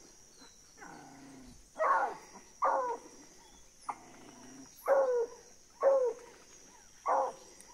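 Hunting dogs barking in spaced single barks, about five over several seconds, each falling in pitch, baying at a paca holed up in its burrow. A lower, rougher call comes about a second in.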